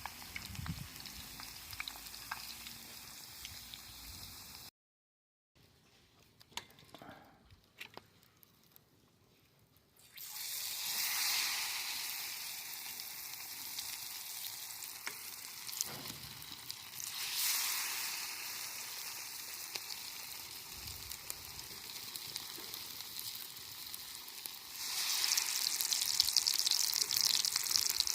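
Hot oil sizzling as food deep-fries. The sizzle drops away for a few seconds, leaving only faint clicks, then comes back strongly about ten seconds in and grows louder again near the end.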